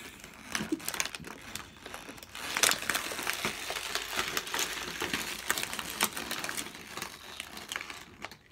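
Plastic toy packaging crinkling and crackling as it is handled and opened, busier from about two and a half seconds in, with a sharp crack then.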